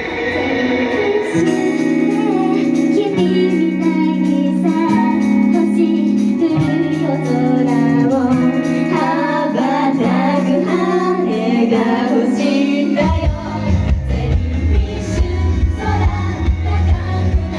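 Female idol group singing a pop song live. A sparse section of sung melody over held chords gives way, about thirteen seconds in, to the full band with drums and bass.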